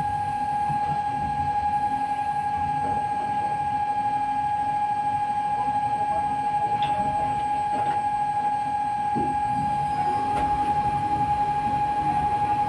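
A steady, unbroken electronic alarm tone sounds over the low rush of the gas-fed flames in a fire-training simulator.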